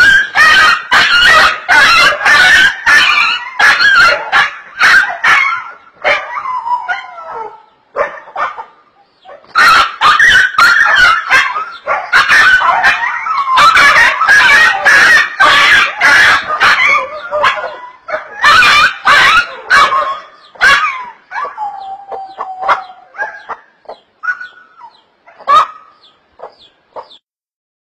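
Small dog yelping and barking in rapid, loud runs of short cries while a chicken pecks at it, the distress calls of a dog under attack. The runs pause briefly about 7 to 9 seconds in, then thin out into scattered yelps, with one longer, lower whine about 22 seconds in.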